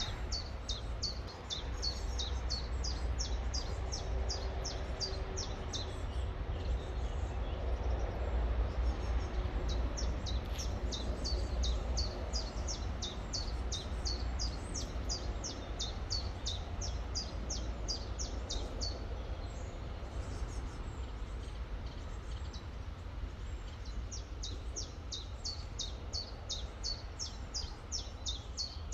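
A songbird repeating a short, high, falling chirp note several times a second in long runs, pausing twice, over the steady rush of a river with a low rumble underneath.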